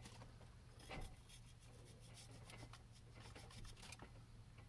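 Faint rustling and small ticks of a green bell pepper being trimmed by hand, the white pith cut out over a plastic-bagged trash bucket, with one slightly louder tick about a second in. A low steady hum lies underneath.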